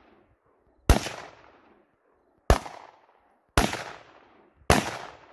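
Four single gunshots fired at a deliberate, slightly uneven pace, about a second to a second and a half apart. Each crack is followed by a fading echo.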